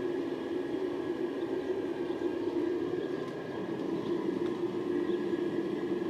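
Homemade crucible furnace running, a steady roar with a low hum that holds even throughout.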